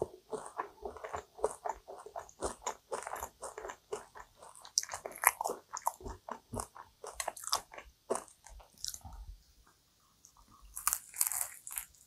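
Close-up mouth sounds of a person chewing a cream-filled kouign-amann pastry: quick moist, crackly clicks of the flaky caramelised crust. They thin out about eight seconds in, then a fresh bite into the crust near the end brings a louder cluster of crunches.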